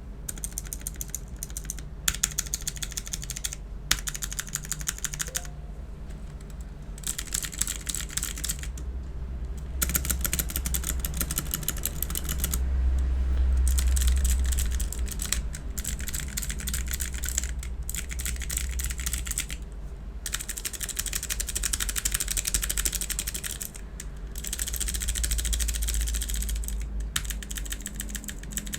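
Fast typing on an Imperion Mech 7 mechanical keyboard with clicky Long Hua blue switches: rapid runs of sharp key clicks broken by short pauses. A low rumble swells underneath twice, around the middle and near the end.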